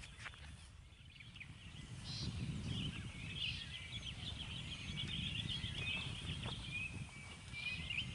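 Birds chirping in many short calls over a low rumble that swells about two seconds in and then holds.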